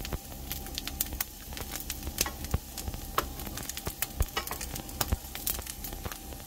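Ginkgo nuts frying in oil in a pan: a steady sizzle with irregular sharp pops and crackles.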